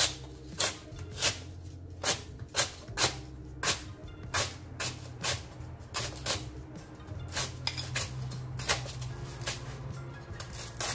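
A chef's knife slicing lemongrass into small rounds on a cutting board: sharp, regular chops at about two a second, each ending in a knock of the blade on the board.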